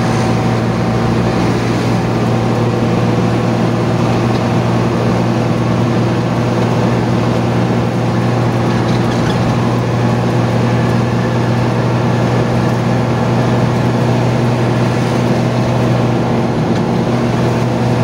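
An intercity bus's diesel engine drones steadily at cruising speed, mixed with road noise, heard inside the bus cabin. The engine pitch holds steady without revving.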